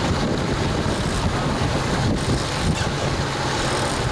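Wind buffeting the microphone over the steady low drone of a boat's engine.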